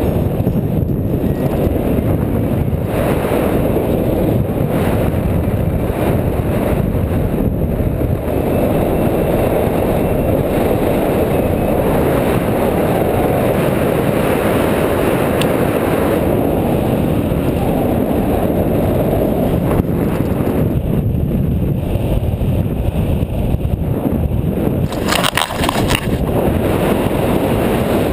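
Wind rushing over the microphone of a harness-mounted camera as a paraglider climbs under winch tow: a loud, steady rush of air. A short clatter comes near the end.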